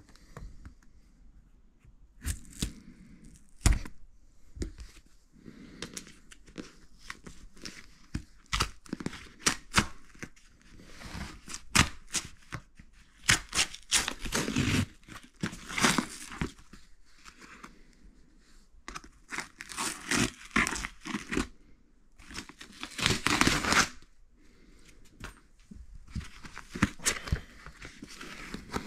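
Cardboard shipping box being opened by hand: packing tape and cardboard tearing in irregular rips, with crinkling and knocks.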